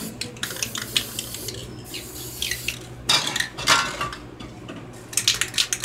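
Aerosol spray paint can hissing in short bursts, a few times in the second half, among scattered light metallic clinks and taps.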